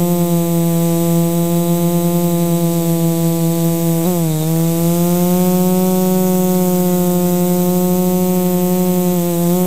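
Lumenier QAV540G quadcopter's electric motors and propellers humming steadily, close to the camera on board. The pitch dips and swoops back briefly about four seconds in and again near the end as the throttle changes.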